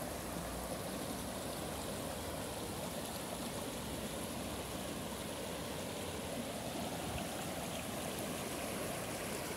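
Shallow Carpathian mountain river running over stones and riffles: a steady rushing of water.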